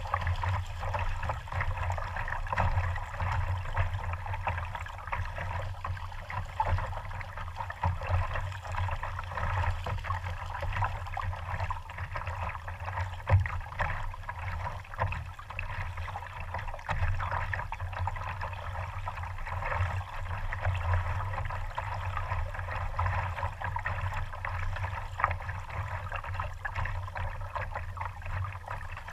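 Sea water lapping, sloshing and gurgling against a GoPro camera sitting at the waterline beside a slow-moving kayak, with irregular small splashes and one sharper slap about halfway through.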